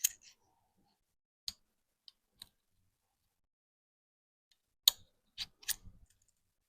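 A handful of light, sharp clicks and taps from small AR-15 trigger-group parts being handled, scattered irregularly with stillness between them.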